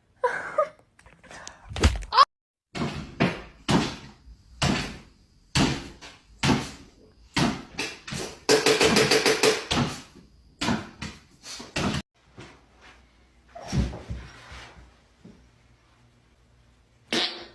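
A run of irregular knocks and thumps, roughly one a second, with a pitched sound held for about a second and a half near the middle.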